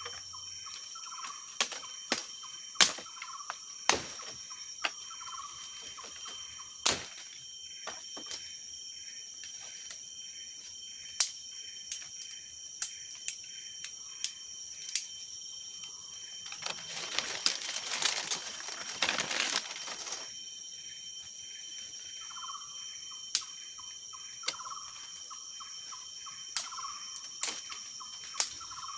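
Outdoor ambience with a steady, high-pitched insect drone, a short call repeating every two seconds or so, and scattered sharp clicks. A rushing, rustling noise swells for about four seconds around the middle.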